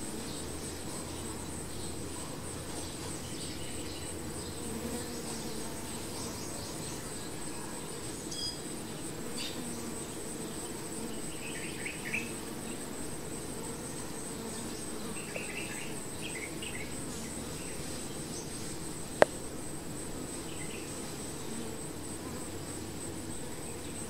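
Steady buzzing hum of a clustered honey bee swarm, with a steady high-pitched insect trill behind it and a single sharp click about three-quarters of the way through.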